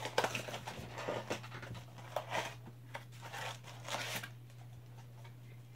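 Trading-card blaster box packaging being torn open and handled by hand: irregular tearing and crinkling rustles, busier in the first half and thinning out toward the end.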